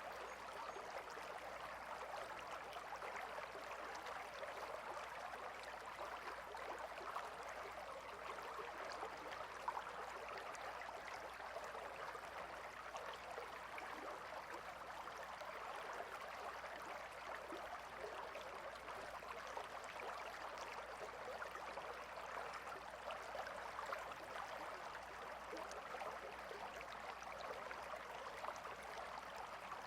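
Gentle river or forest stream flowing steadily, a continuous babbling rush of water with small gurgles and droplet ticks.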